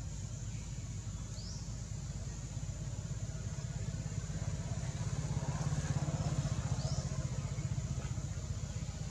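Low, steady rumble of a motor vehicle's engine that swells near the middle and eases off again, as if passing by. Two short, high, rising chirps stand out, one early and one near the middle.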